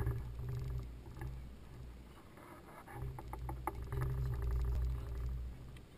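Low rumble of a radio-controlled model boat under way, heard through a GoPro in its waterproof case on the deck, swelling twice, with light ticks of water against the hull a few seconds in.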